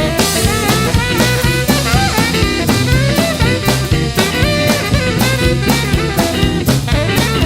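A blues band plays an instrumental break, with a melodic lead line over walking bass and a drum kit keeping a steady swing beat. The band is saxophone, electric guitar, bass and drums.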